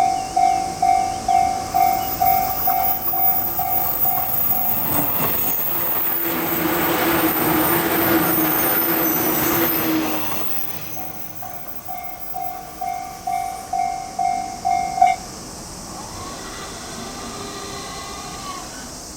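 Japanese level crossing electronic alarm bell ringing at about two strikes a second while a limited express train passes through the crossing. The train's rushing wheel noise drowns the bell for several seconds, then the bell rings on alone and cuts off abruptly about two-thirds of the way through, as the crossing clears.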